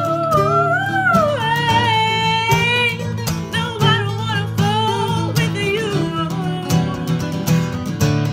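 Two acoustic guitars strummed together while a woman sings a sustained, wavering melody; her voice drops out about six seconds in, leaving the guitars playing on.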